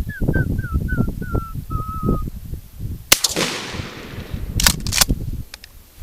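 A person whistling an imitation moorhen call: a quick run of about ten short notes stepping down in pitch. About three seconds in comes a single sharp crack with a fading tail, then two short clicks near five seconds.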